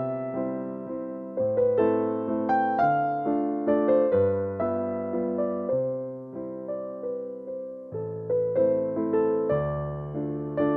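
Background music: a gentle electric piano melody over sustained low chords, notes struck and fading in a steady rhythm.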